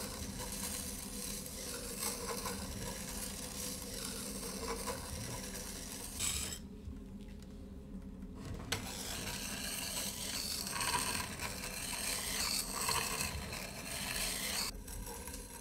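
Steel plane iron being ground on a turning sandstone grinding wheel at a 30-degree bevel: a steady rasping hiss of steel on stone. It stops for about two seconds in the middle while the blade is lifted off to check, then resumes.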